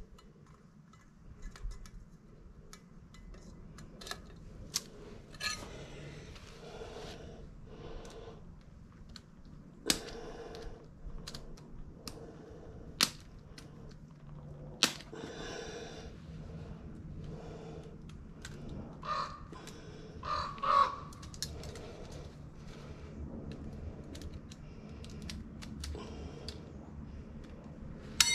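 Scattered clicks and metallic clinks of hand tools and parts being handled, irregular and spread out, a few of them ringing briefly.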